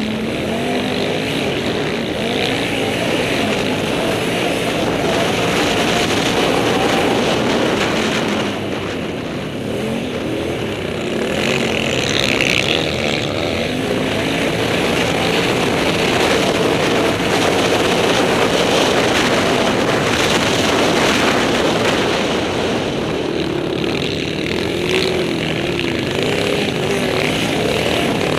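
Can-Am Outlander 800 XXC quad's V-twin engine running hard under riding, its pitch rising and falling with the throttle, easing off briefly about nine seconds in before pulling again.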